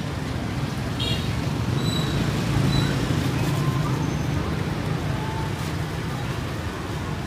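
Steady street traffic noise, with a brief clink about a second in.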